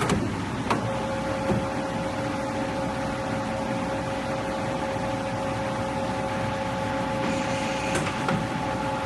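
CNC pipe bending machine running: a steady mechanical noise with a two-tone whine that starts with a click under a second in, and a few sharp clicks.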